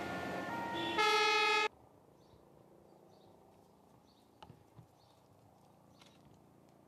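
A loud, steady horn-like tone lasting under a second, cut off suddenly. It is followed by faint outdoor background with distant bird chirps and a few light clicks.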